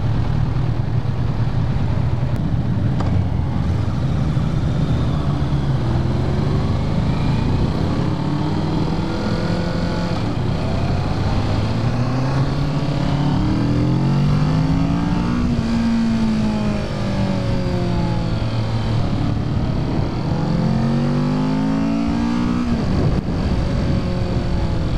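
2017 Kawasaki Ninja 650's parallel-twin engine on its stock exhaust, pulling away and accelerating through the gears: its pitch climbs and drops back several times as it shifts up, over a steady low wind rumble.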